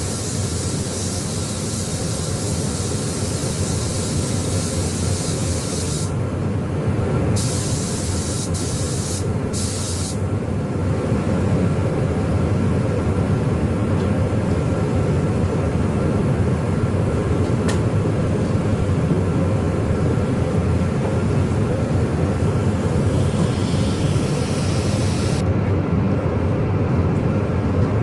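Paint spray gun hissing as direct-gloss paint goes on: a long pass, then three short triggered bursts about seven to ten seconds in, then fainter spraying that stops near the end. Under it runs a steady low machine drone.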